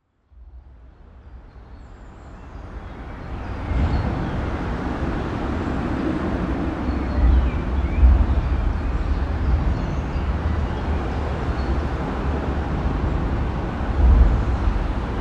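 Ring-road traffic passing over a bridge, heard from underneath: a continuous wash of tyre and engine noise with a heavy low rumble that swells as vehicles cross overhead. It fades in over the first few seconds, then holds steady with louder surges about 7 seconds in and near the end.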